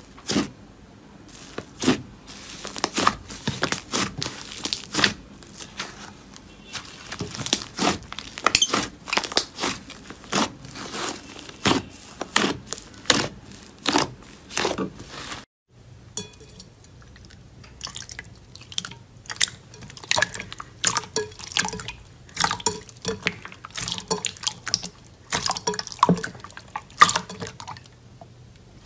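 Hands squeezing and poking slime, giving many short sticky pops, clicks and squelches in irregular clusters. A brief break about halfway through, then more of the same.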